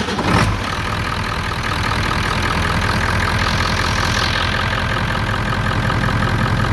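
Ford 7.3L Powerstroke V8 turbo-diesel catching right at the start after a short crank, then running at a steady idle. A quick, normal start with the truck's own injection pressure regulator (IPR) valve back in, running and sounding good.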